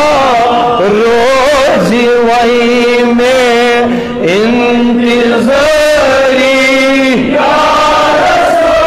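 A man singing a Kashmiri naat into a microphone, drawing out long, wavering held notes.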